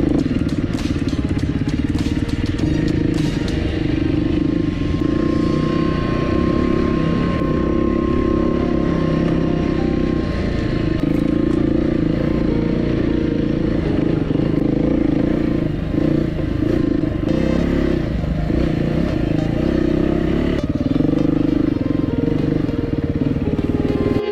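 Dual-sport motorcycle engine running under way on a dirt trail, holding a fairly steady pitch with brief dips as the throttle is eased and opened again.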